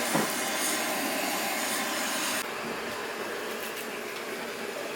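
Hand-held gas torch hissing steadily as it is played on charcoal to light it, turning a little softer and duller about two and a half seconds in.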